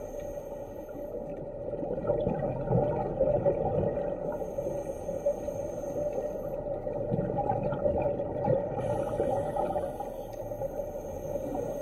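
Scuba diver breathing through a regulator underwater, with the bubbles of each exhalation bubbling up, heard muffled with most of the sound low in pitch.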